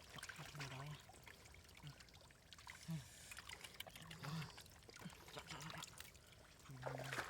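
Water splashing and trickling, with scattered short clicks and a few brief murmured voice sounds.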